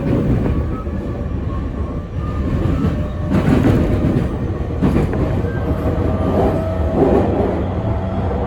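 Running noise inside an unrenovated JR E231-1000 series motor car (MoHa E231) in motion: a steady low rumble with thin motor and inverter tones over it. Rushes of wheel-on-rail noise swell up about three, five and seven seconds in. This car has a stronger low growl than usual.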